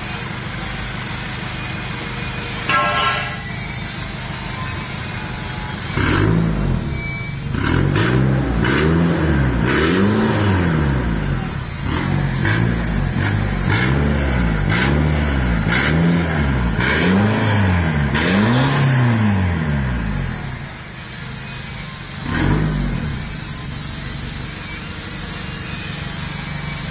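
Nissan Navara engine breathing through a full straight-through exhaust with no resonator and a short side-exit tip. It idles, then is revved in about ten quick blips, each rising and falling in pitch, from about six seconds in to about twenty seconds. One more short blip follows a couple of seconds later before it settles back to idle.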